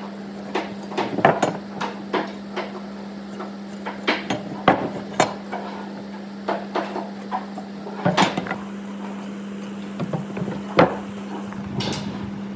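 Irregular knocks, taps and clinks of hand tools and wood being worked and handled, a few louder than the rest, over a steady low hum.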